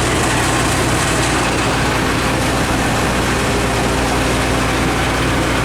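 Fire engine's heavy engine running steadily: a constant low hum with a steady hiss over it.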